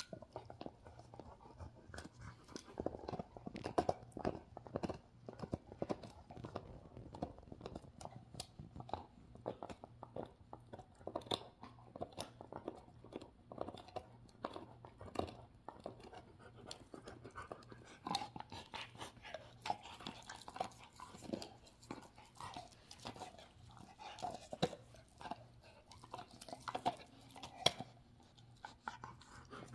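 A dog gnawing a chew, with dense, irregular crunching and clicks of teeth.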